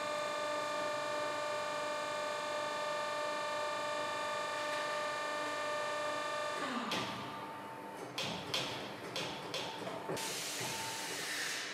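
Corghi AGT Tilt Car Mate tyre changer's electric motor and gearbox running with a steady whine, which drops in pitch and stops about seven seconds in. Then a few clicks and knocks, and a burst of hiss near the end as the foot pedal is pressed.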